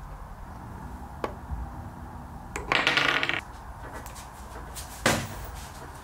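A rattling clatter lasting under a second, then a single sharp knock about two seconds later.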